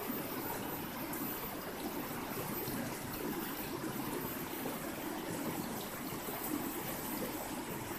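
River water flowing steadily over rocks, a continuous rushing murmur with no breaks.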